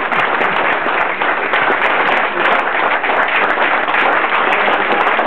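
An audience applauding: many hands clapping steadily.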